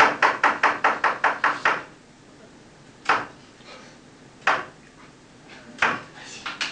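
The 'trois coups' of French theatre knocked out: a quick roll of about nine sharp knocks, then three slow, evenly spaced knocks. This is the traditional signal that the curtain is about to rise.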